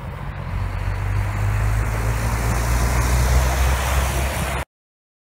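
Airbus A320 jet engines under power: a deep steady rumble under a rushing roar that swells over the first second or so and then holds. It cuts off suddenly near the end.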